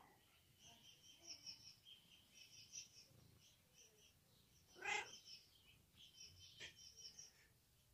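Quiet background with faint, rapid high-pitched chirping throughout. A brief louder sound comes about five seconds in, and a single click follows a second and a half later.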